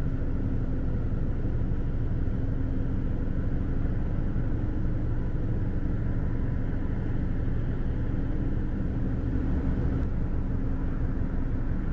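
Steady low engine rumble with an even hum over it, typical of a ship's diesel machinery running as it gets under way.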